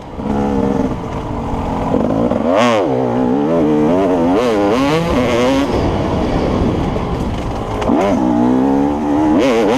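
Dirt bike engine heard from on board, revving up and falling off again and again as the throttle is opened and closed, with sharp drops in revs about three seconds in and again near eight seconds.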